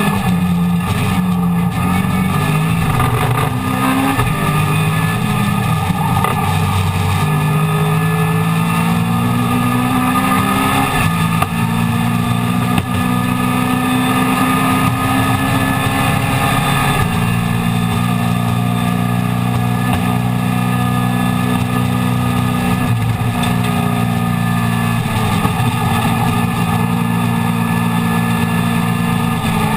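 A Mini Miglia race car's A-series four-cylinder engine, heard from inside the cockpit, running hard at racing speed. The revs climb and drop several times as the car is shifted through the gears, over a constant road and wind noise.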